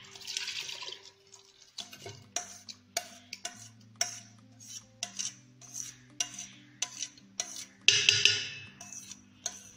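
Metal spoon scraping and knocking on steel as thick malai (clotted milk cream) is scraped out of a steel bowl into a steel pot: irregular sharp clinks, with a longer scrape about 8 seconds in.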